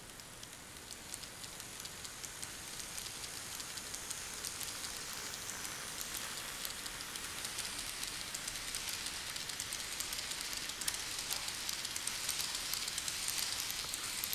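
Kato N-scale model of an E233-series Chuo Line electric train running along the track, its wheels giving a steady hiss with many fine clicks over the rail joints, growing louder as it passes.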